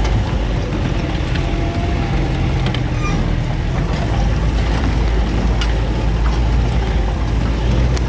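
Off-road vehicle's engine running steadily at low speed over a rough forest track, heard from inside the cab, with scattered clicks and knocks from the bouncing vehicle.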